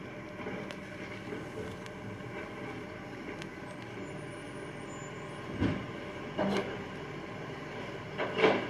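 Recycling garbage truck's engine running steadily, with a dull thump a little past halfway and louder clatters near the end.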